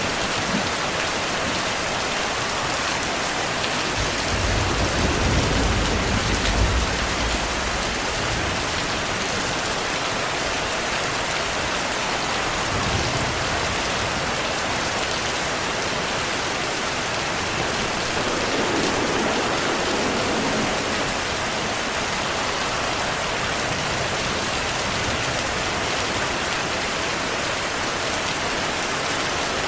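Steady heavy rain hissing, with a low rumble of thunder that swells about four seconds in and fades over the next few seconds.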